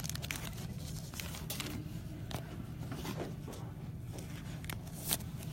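Trading cards being handled: a run of soft flicks and clicks as cards are slid and set down, the sharpest one near the end, over a low steady hum.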